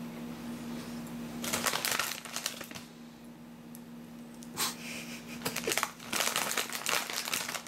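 Three bursts of crinkly crackling and crunching from snacking on Sun Chips, over a steady low hum.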